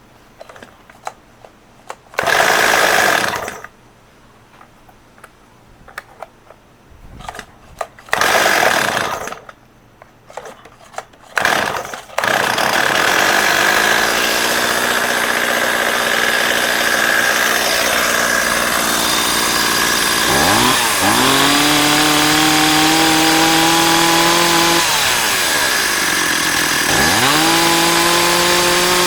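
Stihl 026 Pro two-stroke chainsaw being pull-started: short loud bursts a few seconds apart, then it catches about twelve seconds in and runs at idle. Near the end it is revved up twice, the pitch rising sharply each time and holding high.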